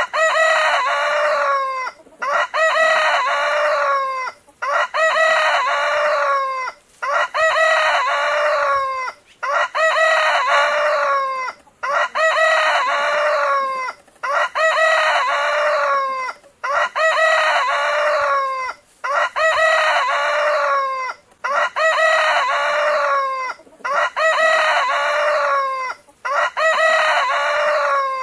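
Rooster crowing over and over, about a dozen cock-a-doodle-doo calls in a row, one every couple of seconds. Each crow sounds alike.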